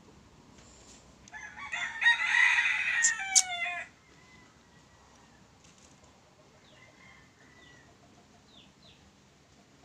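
A rooster crowing once, a drawn-out crow of about two and a half seconds starting a little over a second in and falling in pitch at its end.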